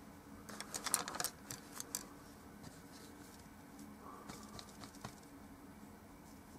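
A quick flurry of small clicks and clatters from about half a second to two seconds in, and a few lighter ones between four and five seconds, over a low steady hum: small hard objects being handled, such as painting tools.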